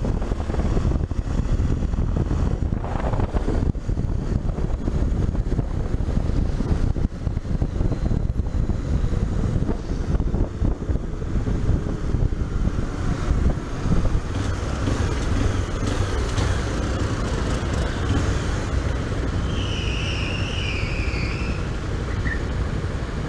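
Wind rushing over the camera microphone on a riding Honda XRE 300, with the single-cylinder engine running underneath in city traffic. A high, wavering squeal lasts about two seconds near the end.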